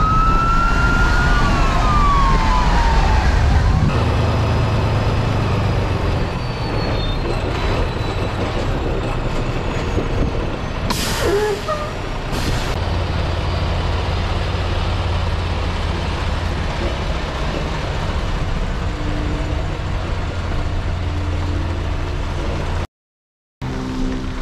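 Semi-truck running, heard from inside the cab: a steady low engine and road rumble, with a pitched whine that rises and then falls over the first few seconds. About eleven seconds in comes a short sharp hiss of air, like an air brake, and a smaller one just after.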